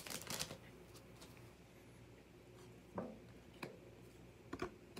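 Quiet handling of cardboard trading cards: a few soft clicks and taps as cards are picked up and shifted, one about three seconds in and a couple more near the end.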